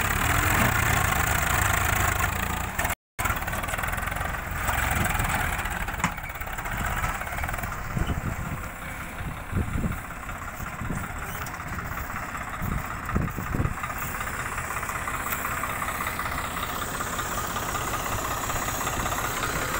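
Swaraj 744 FE three-cylinder diesel tractor engine running under load as it tows a stuck trolley through mud on a rope. The sound drops out briefly about three seconds in. A few dull low thumps come through the middle.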